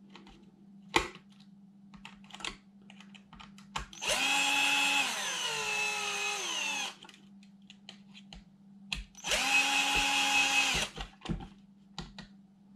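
Cordless drill used as a screwdriver on a 1/10 RC buggy's screws, its motor running twice: first for nearly three seconds, about four seconds in, with its pitch falling as it slows in the second half, then for about a second and a half near the ten-second mark. Small clicks and knocks of handling between the runs.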